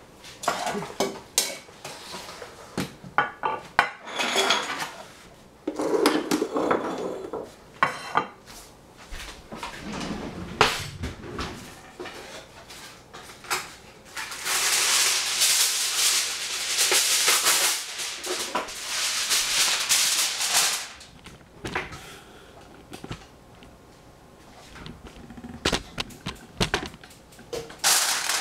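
Clinks and knocks of a metal saucepan, whisk and utensils in a stainless-steel kitchen sink, then several seconds of loud, steady rustling about halfway through. Near the end, aluminium foil crinkles under hands.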